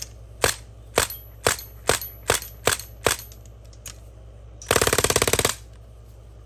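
A DPMS fully automatic CO2 BB rifle firing copper BBs during a function check after painting. It fires seven single shots about two a second, then, about four and a half seconds in, a rapid full-auto burst that lasts under a second.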